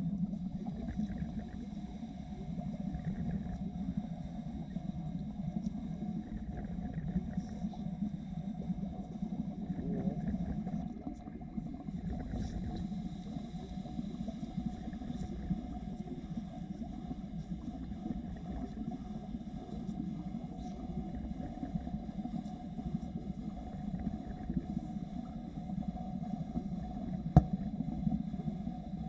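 Underwater wet-welding arc burning steadily: a continuous crackling, bubbling rumble, with one sharp click near the end.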